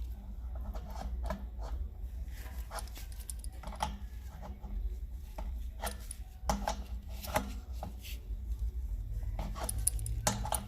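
A metal wrench clicking and scraping against a threaded fitting as it is turned and snugged into an air compressor, in short irregular clicks with a low steady hum underneath.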